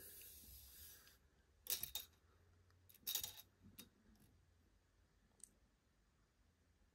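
Faint handling noise: a soft rustle at the start, then a few short clicks and rustles about two, three and four seconds in, with a tiny tick later.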